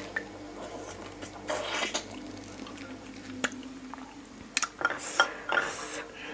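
Close-up eating sounds of raw fish-sauce-pickled blue swimming crab: a wet slurp of the juicy meat about a second and a half in. Later, crab shell clicks against a glass dipping-sauce bowl with wet squishing as the pieces are dipped.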